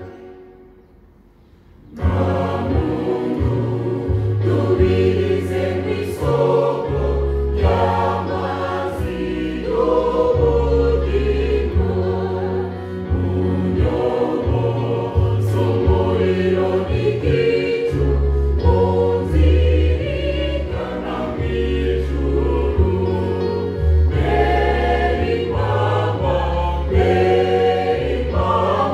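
Mixed church choir singing a hymn, accompanied by an electronic keyboard holding low bass notes. After a short pause, singing and keyboard come in together about two seconds in.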